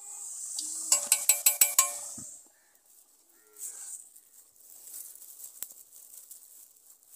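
A quick run of about six sharp, ringing pitched notes, about a second in, over a high hiss. Then quieter crinkling of plastic spice bags being handled in a steel bowl.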